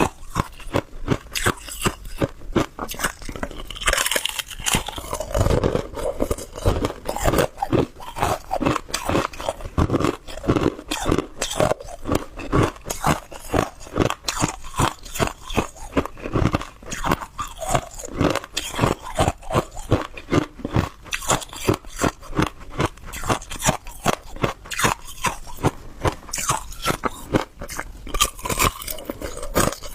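Hard ice being bitten and chewed close to the microphone: a steady run of sharp, crackling crunches, a few each second. A heavier bite comes about four to six seconds in.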